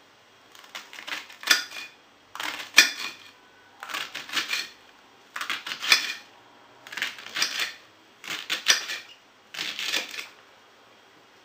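Kitchen knife slicing a vegetable on a china plate, the blade clicking and scraping on the plate in seven quick bouts of cuts about a second and a half apart.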